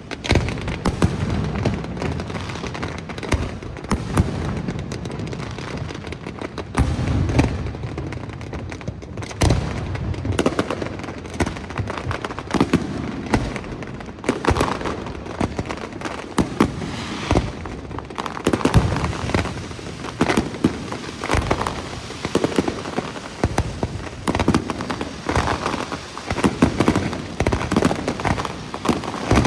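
Aerial fireworks display: a dense, continuous barrage of shell bursts and crackling, with deep booms under rapid sharp bangs throughout.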